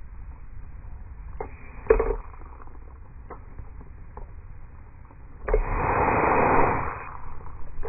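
A fine water mister spraying runner bean plants: a sudden hiss of spray about five and a half seconds in that lasts about a second and a half, after a few light clicks and knocks.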